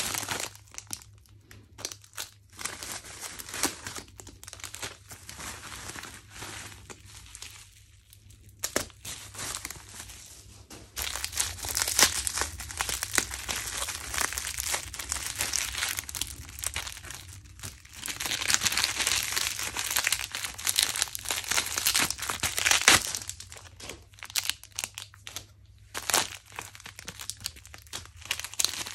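Bubble wrap and plastic packets crinkling and rustling in hands as they are unwrapped, fairly quiet at first and louder for long spells in the middle.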